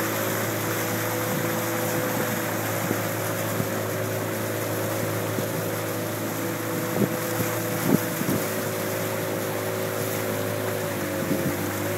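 Motorized canoe's engine running steadily under way, with rushing water and wind noise. A few short knocks come about seven and eight seconds in.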